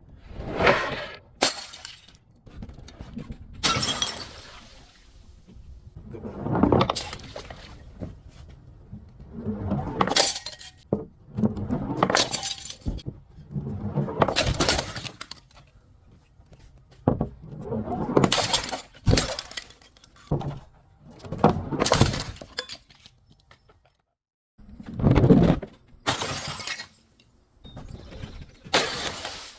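Glass bottles being smashed, a series of about a dozen shattering crashes with tinkling debris, one every two seconds or so.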